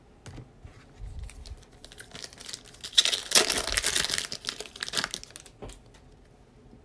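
Foil wrapper of a Panini Prizm basketball card pack crinkling and tearing as it is ripped open by hand, loudest for about two seconds from around three seconds in, with lighter handling rustles before it.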